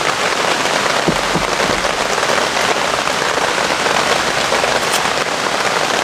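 Heavy rain falling steadily, a dense even hiss of drops with no break.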